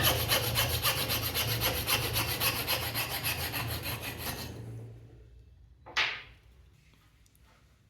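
A tool works a piece of walnut with fast, even back-and-forth strokes, a rasping rub on the wood, over a low hum, fading out about four and a half seconds in. About six seconds in comes a single sharp knock with a short ring.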